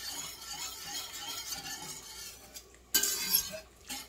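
Wire whisk stirring cream into a mushroom sauce in a stainless steel pan, the wires swishing through the liquid and scraping the pan, with a louder scrape about three seconds in.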